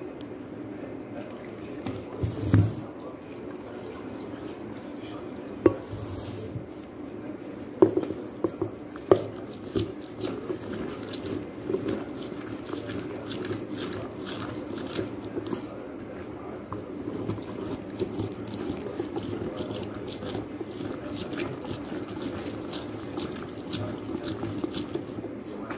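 Orange halves twisted and pressed by hand on a manual citrus juicer: wet squishing and juice dripping, with a few sharp knocks in the first ten seconds and many small irregular ticks after.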